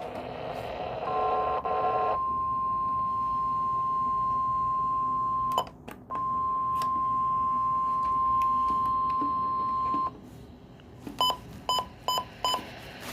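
NOAA Weather Radio's 1050 Hz alert tone held steadily for about nine seconds, cutting out for half a second partway through, then four short electronic beeps near the end. This is part of a weekly alert test that the listener says failed.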